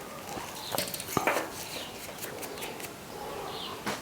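Faint scattered clicks and short scrapes of the thin wire winding being worked out of a microwave oven transformer.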